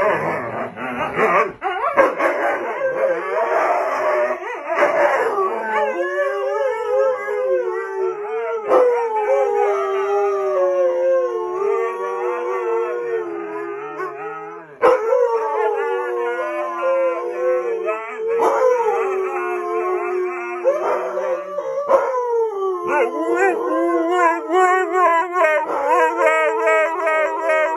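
Several Siberian huskies howling together: long, wavering howls at different pitches overlap, each breaking off and starting again every few seconds. The first few seconds are a busier jumble of husky yips and chatter before the howls settle in.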